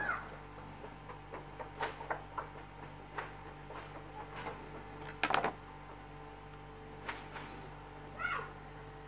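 Scissors snipping and pulling at the insulation of thin red hookup wire, a few light clicks. Over it come short pitched calls like an animal's, a louder one about halfway through and another near the end.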